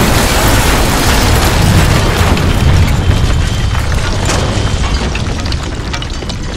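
Earthquake rumble with buildings collapsing: a deep, loud rumble with crashing rubble that slowly dies down, leaving scattered clatter of falling debris toward the end.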